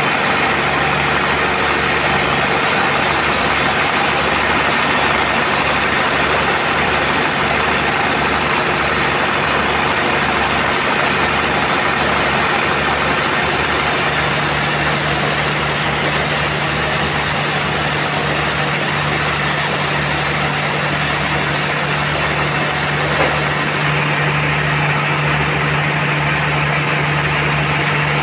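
Sawmill band saw running steadily through teak, a loud continuous mechanical noise with a steady low hum. The high hiss thins out about halfway through.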